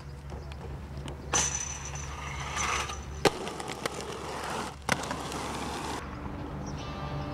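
Aggressive inline skate wheels rolling on asphalt over a steady low rumble, with sharp clacks of landings or grinds about a second and a half in, about three seconds in and near five seconds in.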